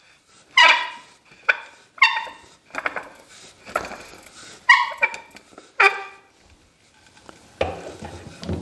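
A dog barking, about seven short barks spread over several seconds, followed near the end by a lower, rougher sound.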